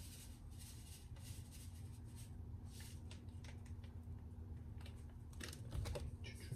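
Faint rustling and crinkling of a paper seasoning packet as dried spices are shaken out over a bowl of salad, over a low steady hum. A light knock comes near the end.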